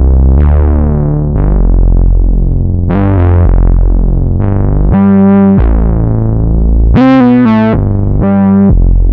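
Moog Sub 37 analog synthesizer playing a deep house bass patch: a line of bass notes about one a second, each opening with a bright filter pluck that quickly closes down. A busier, warbling part sits on top between about five and eight seconds in.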